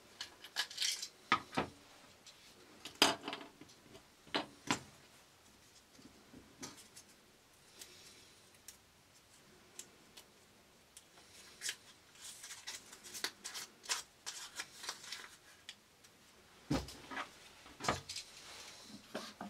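Scattered clicks, taps and light rattles of small plastic parts and a metal screwdriver as an inline cable switch is unscrewed and taken apart by hand, the screwdriver laid down on the bench.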